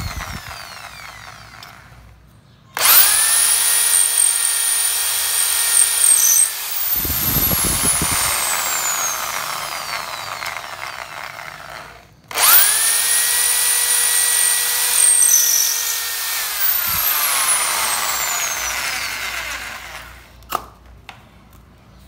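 Bosch GSB 501 electric drill boring a metal bit into an oiled steel drawer slide, in two runs. Each time the motor starts suddenly with a high whine, holds steady for a few seconds, then winds down.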